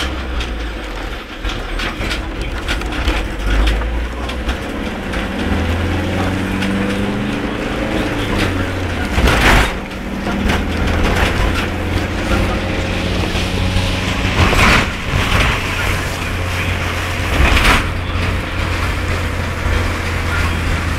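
A vehicle driving through very heavy rain: a steady low hum of engine and tyres under a dense hiss of rain and spray. Three louder rushing bursts stand out, about nine, fifteen and eighteen seconds in.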